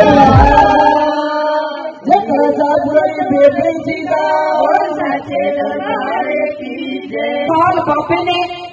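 Women singing a devotional kirtan song into microphones. A drum beat stops about a second in, leaving the voices unaccompanied.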